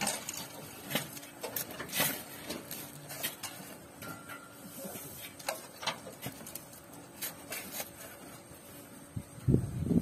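Shovel scraping and scooping sand and gravel, with irregular clicks and knocks of stones. A louder, lower sound starts just before the end.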